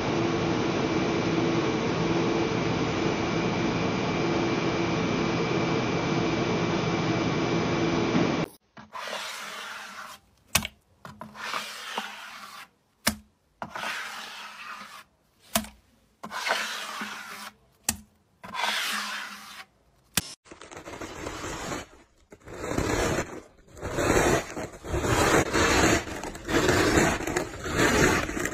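A small machine motor runs with a steady hum while it coils red plastic onto a rod; the hum cuts off about a third of the way in. Then a plastic scraper drags through thick slime in a bucket in separate strokes, and near the end it scrapes quickly through a pile of hard candy buttons.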